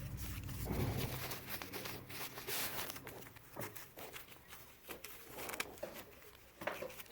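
Light rustling and small clicks as phones and their packaging are handled on a bench, with a low hum in the first second or so.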